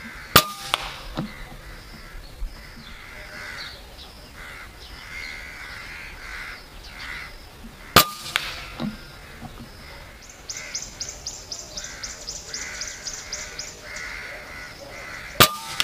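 Three shots from a .25 Avenger PCP air rifle, about seven to eight seconds apart, each followed a fraction of a second later by a fainter knock. Between the shots crows caw repeatedly, and past the middle a fast run of high ticks, about five a second, lasts a few seconds.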